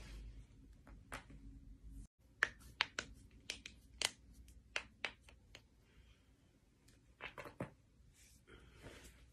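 A series of sharp, short joint cracks and pops from knuckles or the back being cracked, bunched together a couple of seconds in, with a few more later and a brief rustle near the end.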